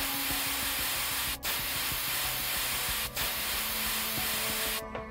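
Gravity-feed paint spray gun hissing as it sprays with compressed air, in three bursts with two brief breaks between them, stopping near the end.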